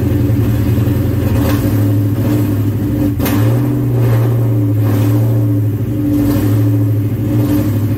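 Ford Mustang engine idling, heard from inside the cabin. About three seconds in there is a light click, and the engine speed rises slightly, then settles back to idle near the end.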